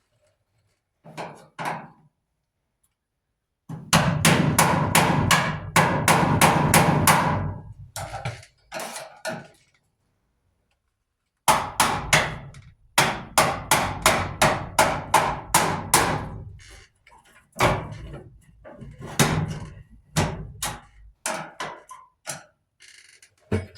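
Mallet hammering on a clothes dryer being taken apart: runs of sharp blows about three a second, broken by pauses, then slower single strikes toward the end.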